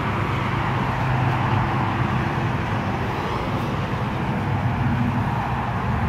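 Steady road traffic noise, vehicles running past with a low engine hum underneath.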